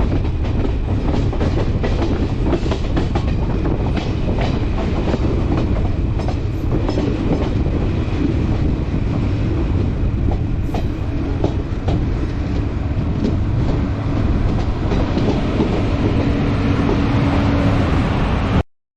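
Passenger express train passing through a station: a steady rumble of coaches with a rapid clickety-clack of wheels over rail joints, cutting off suddenly near the end.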